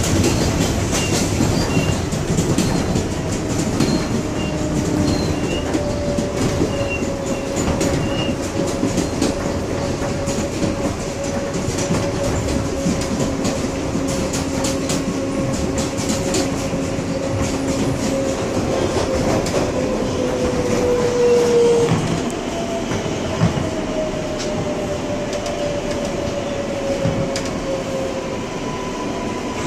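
An R142A subway train running, heard from inside the car: wheels clattering on the rails over a steady rumble. A whine slides slowly down in pitch, ends about 22 seconds in, and a second falling whine follows.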